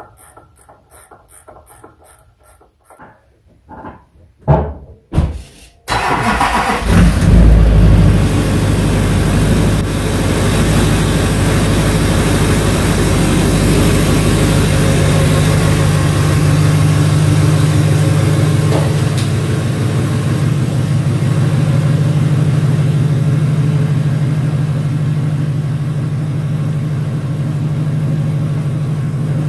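A couple of short knocks, then the pickup truck's Duramax turbo-diesel V8 starts about six seconds in, swells briefly as it catches and settles into a steady idle.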